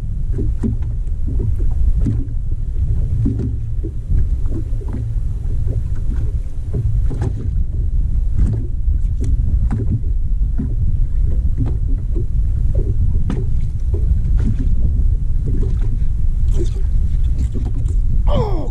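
Wind buffeting the microphone in a steady low rumble, with small waves slapping against a fiberglass bass boat's hull. A short falling whine comes near the end.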